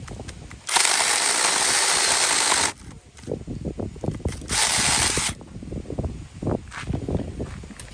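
Battery-powered 4-inch mini chainsaw cutting a wedge into a log, in two bursts: one of about two seconds, then a shorter one about a second and a half later. Low knocks and rustles of wood and branches come between and after the bursts.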